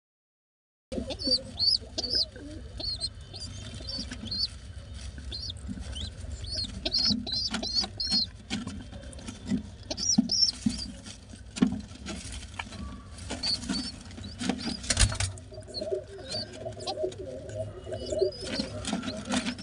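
Pigeon squab squeaking in short, high, repeated peeps while being fed beak-to-beak by the adult pigeon, with soft low thumps underneath. The sound starts about a second in.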